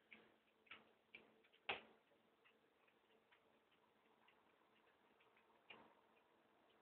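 Near silence: room tone with a few faint, scattered clicks, the clearest a little under two seconds in and another near the end.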